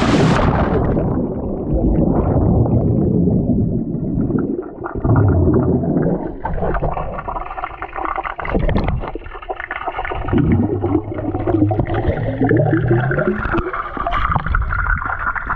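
A splash as the camera plunges under the pool's surface, then muffled underwater gurgling and rumbling of water churning around the camera, with the high sounds cut off.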